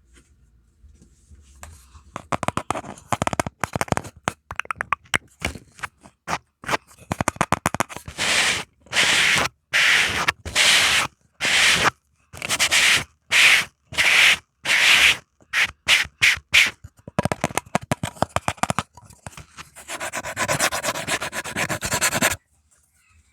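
An ASMR trigger: close-up scratching and rubbing strokes on a surface right at the microphone. Quick light scratches first, then slower strokes of about half a second each at an even pace, then fast continuous scratching that stops suddenly near the end.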